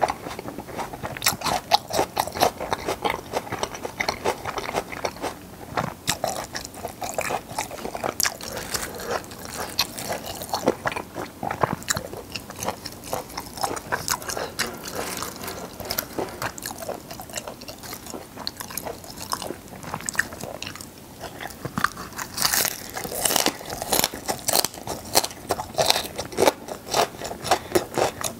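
Close-miked chewing and biting of gwamegi, half-dried fish, eaten with raw greens and green onion: a steady run of wet, crunchy mouth clicks, louder and crisper for a stretch about three-quarters of the way through.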